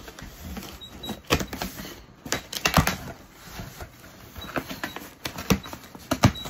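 Cardboard shipping box being opened by hand: scraping and rustling of cardboard and plastic wrapping, with several sharp knocks.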